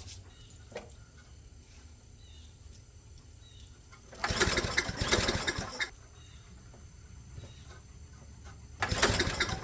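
Tecumseh 6.5 hp mower engine being cranked with the pull cord twice, each pull a second or two of cranking that does not catch, as the new carburetor's float bowl is still filling with fuel.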